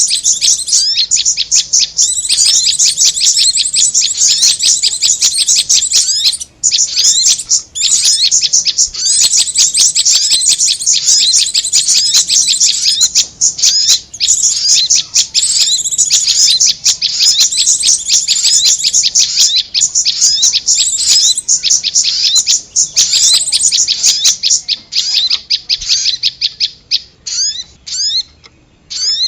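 Bird-lure recording of prenjak (prinia) and korlap calls: fast, high-pitched chirping repeated many times a second with a few brief pauses, thinning to scattered notes near the end.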